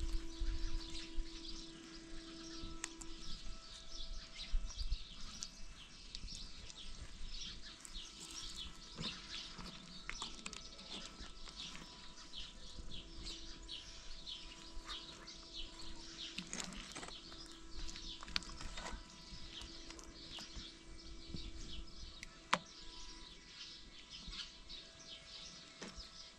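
A flock of small birds chirping continuously, with quick overlapping chirps, and one sharp knock late on.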